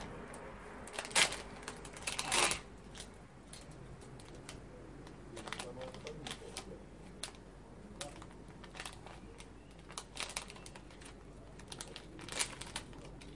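A foil blind-bag packet being torn open and crumpled by hand: irregular sharp crinkles and rips, loudest about a second in, around two seconds in, and again near the end.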